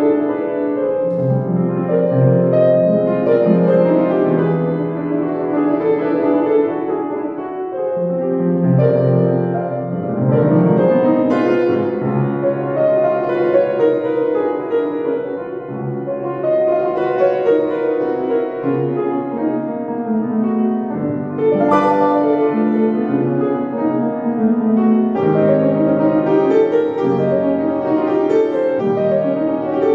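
Solo classical piece on a Kawai upright piano, played in full, sustained chords whose loudness swells and ebbs, with several strongly struck chords.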